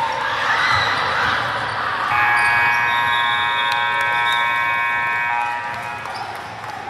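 Gym scoreboard buzzer sounding one steady, loud blast of about three seconds, starting about two seconds in and stopping sharply. Gym noise with a few short knocks runs underneath.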